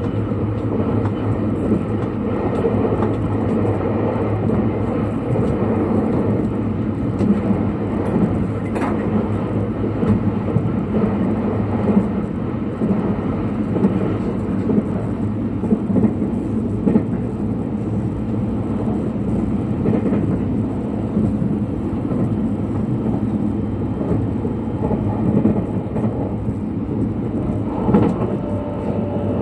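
Thunderbird limited express electric train running, heard from inside the carriage: a steady rumble of wheels and running gear, with a few clicks along the way.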